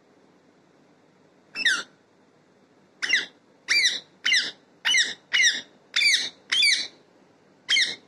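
Rose-ringed parakeet calling: nine short, high-pitched calls. One comes about a second and a half in, then a quick run of seven at about two a second, and a last one near the end.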